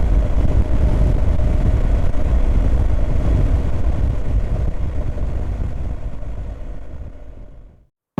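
BMW R 1250 GS Adventure motorcycle running at road speed, a steady low engine and road noise that fades out to silence near the end.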